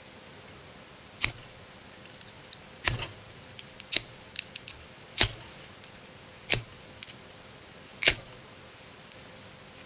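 Striker blade scraped hard along a ferrocerium fire-starter rod, throwing sparks: six sharp scrapes roughly every second and a half, with lighter clicks and scrapes between them.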